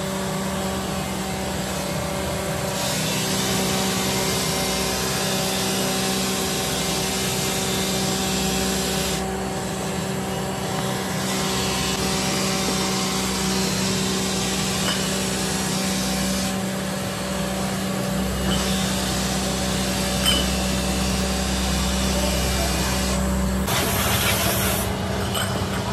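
Belt-driven buffing machine running with a steady electric motor hum while a cast aluminium motorcycle hub is pressed against its spinning cloth polishing wheel, giving a rubbing hiss. The hiss drops away three times for a couple of seconds, and the noise changes to a rougher mix near the end.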